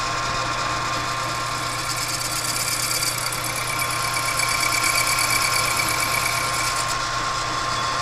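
Metal lathe running with a steady motor hum and gear whine, the clutch housing spinning in the chuck as a parting tool cuts an O-ring groove in it. A higher cutting tone joins in for a few seconds in the middle, where the sound grows slightly louder.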